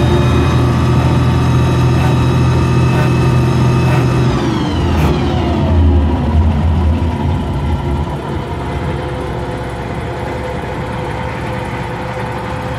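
Scorpion light tank's engine running at raised revs, then the revs falling away about four seconds in, with its whine dropping in pitch, before it settles to a steady idle.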